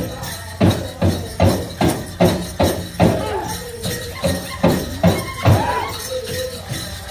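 Powwow drum group singing over a large hand drum beaten in a steady beat, about two and a half strokes a second; the drumming softens near the end.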